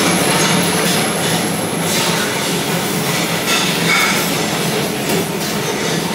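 Steady, loud machine roar of kitchen ventilation around a buffet oven, with light clinks of dishes and cutlery and one short, clear ring about four seconds in.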